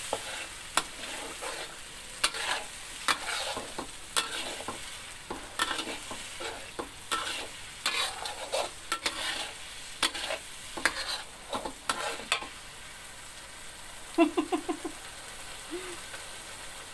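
Ground chilli-and-spice paste sautéing in oil in a metal wok, sizzling steadily, with repeated clinks and scrapes of a metal spatula stirring it against the pan; the spatula strokes stop about three-quarters of the way through while the sizzling goes on. Near the end comes a brief run of short low-pitched sounds.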